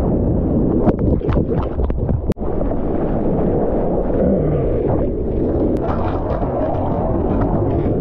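Seawater rushing and splashing close over a bodyboard as it rides a small breaking wave, a steady low rush with several sharp splashes in the first couple of seconds and wind buffeting the microphone. The sound drops out for a moment about two and a half seconds in.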